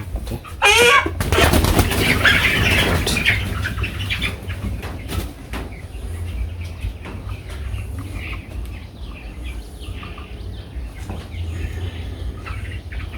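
Broiler chicken flapping its wings hard and squawking for a few seconds near the start, likely while tied and hanging on a weighing scale, then quieter rustling.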